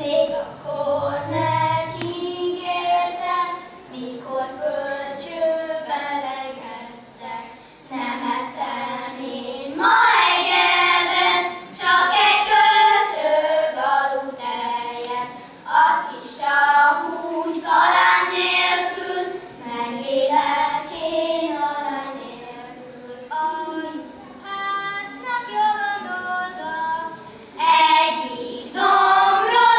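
Children singing a song, phrase after phrase, with the voices in one melodic line.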